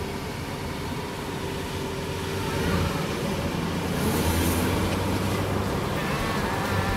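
Honda minivan driving slowly along a street toward the listener: a steady engine and tyre noise that grows gradually louder as it approaches.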